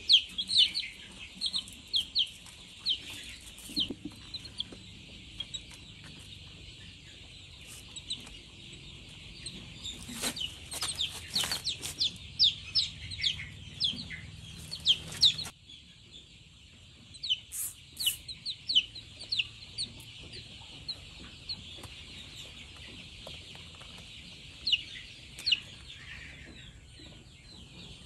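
Domestic fowl calling: many short, high, falling chirps, several a second, over a continuous chorus of calls. The background noise drops suddenly about halfway through.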